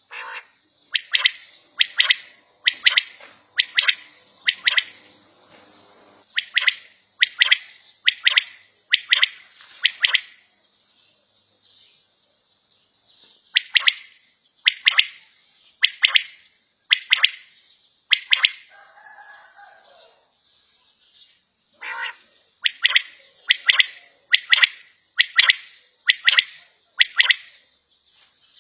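Quail (batair) calling: short, sharp, high notes repeated a little under a second apart, in runs of four to seven with pauses of a few seconds between. A softer, lower call comes once, between two runs.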